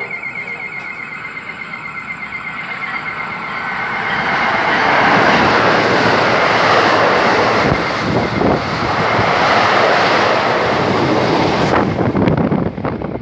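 NJ Transit push-pull deadhead train, bi-level cab car leading and ALP-45DP locomotive pushing at the rear, passing through the station at speed without stopping. The rush of wheels on rail builds from about four seconds in, stays loud through the middle, and eases near the end with a few sharp clacks, while a thin high tone rings over the approach.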